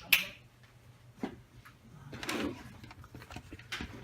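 Objects being handled on a desk: a sharp click at the start, a soft knock about a second in, a short sliding rub a little after two seconds, and another click near the end.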